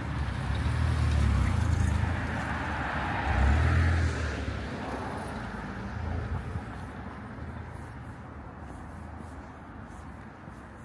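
A car driving past on the street: tyre and engine noise that is loudest in the first four seconds or so, then fades away.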